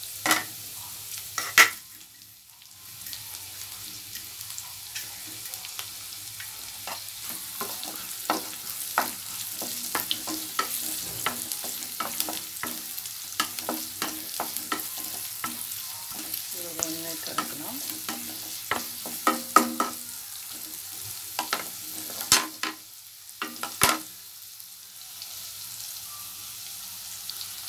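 Chopped onion, garlic and green chilli sizzling in hot oil in a kadai, with a steady hiss, while a wooden spatula stirs them, scraping and knocking against the pan. There are a few loud knocks from the spatula, one near the start and a couple about three quarters of the way through.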